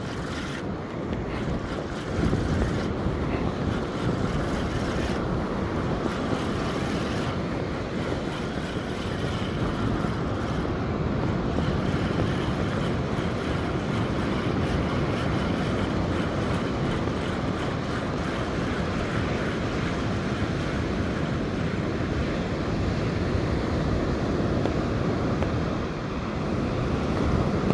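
Wind buffeting a phone's microphone over the steady rush of breaking surf.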